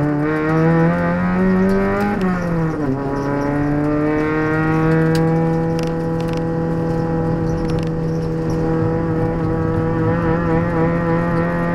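Proton Putra 1800cc race car's four-cylinder engine heard from inside the cabin under hard running. The revs climb, drop sharply about two and a half seconds in, then rise slowly and steadily for the rest of the time.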